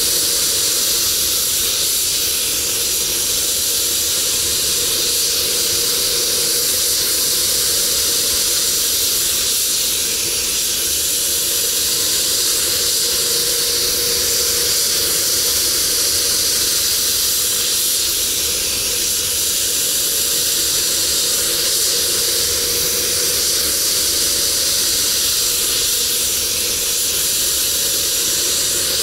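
Compressed-air paint spray gun hissing steadily while spraying paint onto a car bonnet, with a faint steady hum beneath from the spray booth's ventilation.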